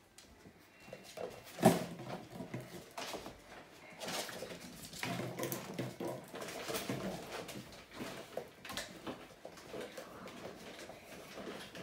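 Five-and-a-half-week-old puppies playing on a tile floor: small yips and growls, claws scrabbling and toys knocked about, with one sharp knock a little under two seconds in.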